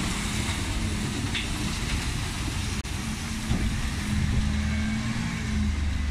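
Dennis Eagle Elite 6 bin lorry's diesel engine running as the lorry pulls away and drives off, a steady low hum that swells a little partway through.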